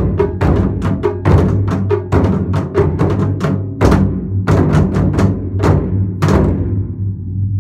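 Taiko drums (barrel-shaped nagado-daiko) played by an ensemble with wooden bachi sticks: a dense run of sharp strikes that ends with a last hit about six seconds in, which rings out.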